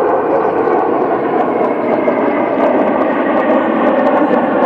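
A formation of four military jets flying past, their engines making a loud, steady jet roar.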